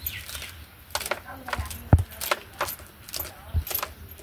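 Irregular light clinking and knocking of small hard objects, several a second, with a deeper, louder knock about two seconds in and another near the end.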